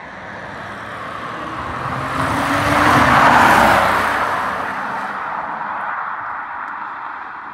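2000 Porsche Boxster 2.7's flat-six engine and tyres as the car drives past, growing louder to a peak about three seconds in, then fading as it moves away.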